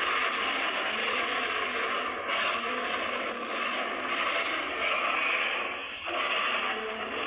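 Creature sound effect for a humanoid moray eel: a harsh, continuous hissing rasp with no clear pitch, dipping briefly about two seconds and six seconds in.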